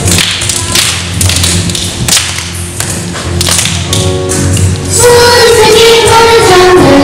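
Young children's action song: a few seconds of sharp claps and thuds with little singing, then the children's group singing comes back in through the microphone about four to five seconds in, loud.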